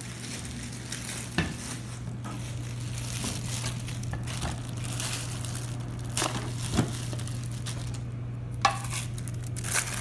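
Clear plastic bag crinkling and rustling as it is pulled off a new electric burr coffee grinder, with a few sharp knocks.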